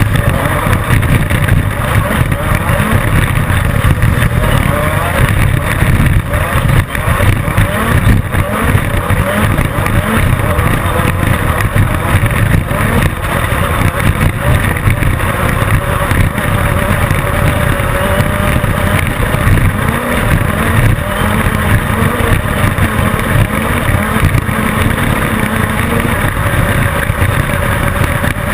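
Class 10 off-road desert race car at racing speed: its engine runs hard under a dense, steady rush of noise, with frequent knocks and jolts over rough ground.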